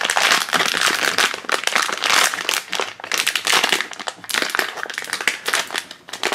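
Silver foil blind-bag pouch crinkling and crackling as hands pull and pick at it, struggling to tear it open.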